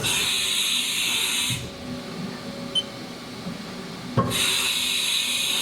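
Tool change on a Haas VF-1D CNC machining center's 20-station automatic tool changer: a pneumatic air hiss for about a second and a half as the spindle releases and blows out, then quieter mechanical movement, then a clunk about four seconds in and a second air hiss.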